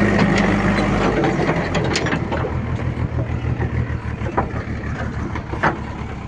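A heavy vehicle's engine idling. Its note changes about a second in, and it grows gradually quieter. A few sharp clicks and knocks can be heard over it.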